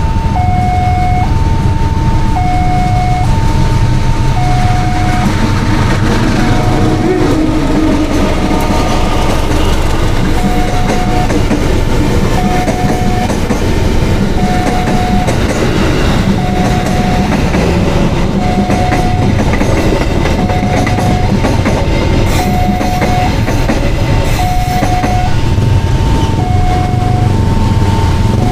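Railroad crossing warning bell sounding an electronic two-tone signal, a high and a low tone alternating about every half second. Under it, a train of ex-JR 205 series commuter cars rolls past with a steady rumble and wheel clatter.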